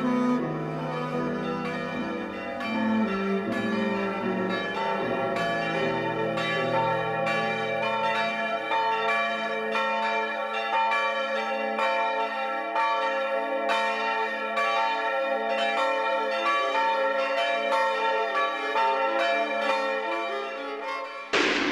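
Church bells pealing in a steady run of overlapping strikes. Low bowed-string notes sound under them and fade out about halfway through, and a sudden loud burst of noise comes right at the end.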